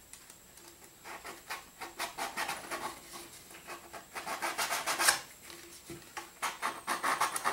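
Coarse sandpaper scrubbed back and forth over the plastic shoulder of a model rocket nose cone, roughing the surface so super glue can grip: a run of scratchy strokes, about two or three a second.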